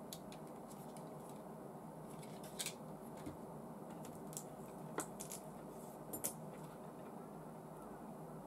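Light, sharp clicks and taps of small plastic model-kit parts being handled and fitted, a handful of them, mostly in the middle, over a steady low background noise.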